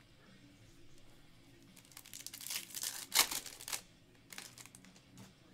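Foil wrapper of a 2021 Bowman Chrome baseball card pack being torn open and crinkled by hand: a stretch of crackling begins about two seconds in and is loudest a little past three seconds, followed by a few lighter crinkles.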